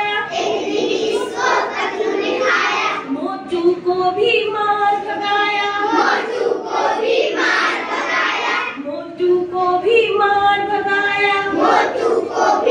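A class of young children singing a Hindi nursery rhyme together in unison, in sung phrases with brief pauses between lines.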